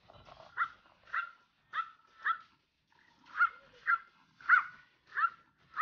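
Pomeranian puppy yapping: about nine short, high barks, roughly two a second, with a brief pause midway.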